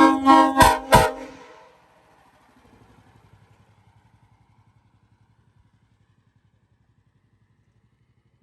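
Nathan Airchime K5CA-LS five-chime train air horn sounding a few quick, very loud blasts in the first second, cut off sharply, with a short echo dying away.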